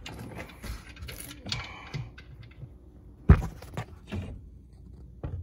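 Handling clatter from work on a car's transmission drain bolt and drain funnel: rustling and light clicks, a sharp knock about three seconds in, then a few lighter clicks.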